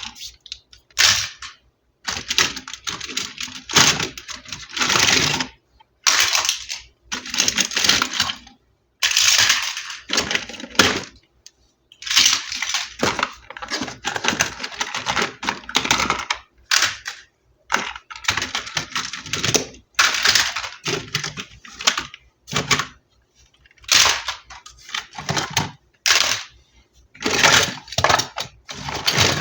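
Toy packaging handled during an unboxing: repeated bursts of crinkling and clicking plastic, broken by short pauses.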